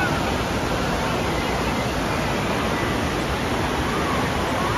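Steady rushing and splashing of water from indoor water-park slides and pools.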